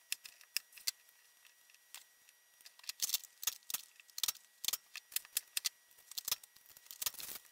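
Knife tapping and knocking on a wooden cutting board while cutting jalapeño and onion: sharp, irregular clicks, sparse at first and busier from about three seconds in.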